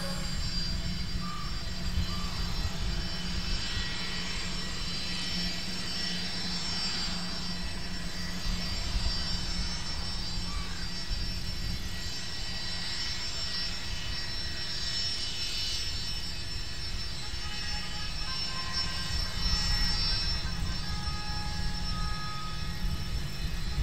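Twin Rolls-Royce Tay turbofans of a JASDF U-4 (Gulfstream IV) running at low power as it taxis: a steady jet whine over a low rumble.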